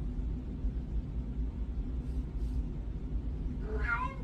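Steady low rumble and hum of background noise. Near the end comes a short wavering pitched sound of about half a second.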